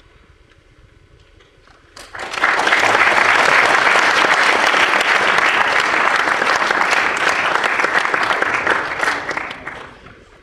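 Audience applauding. The clapping breaks out about two seconds in, holds for about seven seconds, then dies away near the end.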